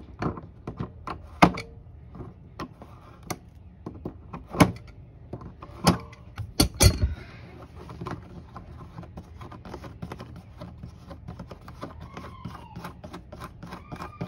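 Channel-lock pliers clicking and clanking against the metal retaining nut of a golf cart horn switch as the nut is broken loose, with the loudest knocks in the first seven seconds. Then softer small clicks as the loosened nut is turned off by hand.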